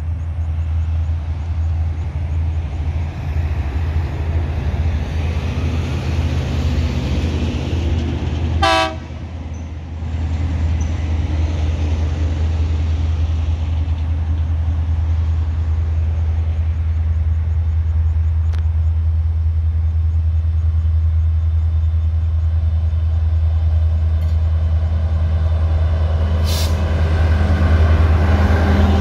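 Diesel-electric freight locomotives approaching along the line, with a steady low rumble throughout. A short horn toot sounds about nine seconds in. The engine sound grows louder near the end as the locomotives draw level.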